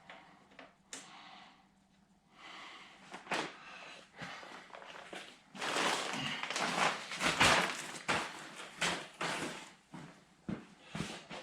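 Irregular handling noise of hands working with tools and parts: rustling and scraping with scattered knocks, busiest in the second half.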